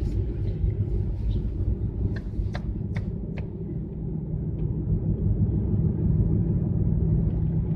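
Steady low rumble of a car's engine and tyres on asphalt, heard from inside the cabin while driving, with a few short sharp clicks about two to three and a half seconds in.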